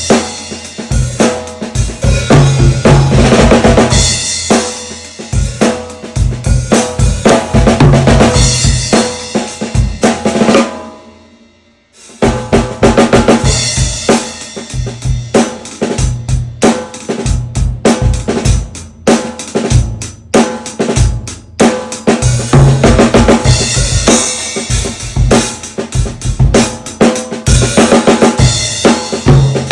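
Drum kit grooving, featuring a high-tuned 14 x 6.25 inch whiskey-barrel oak stave snare drum with Aquarian Studio X heads, along with kick drum, hi-hat and cymbals. About ten seconds in, the playing stops and the kit rings away for a moment. The beat starts again about two seconds later.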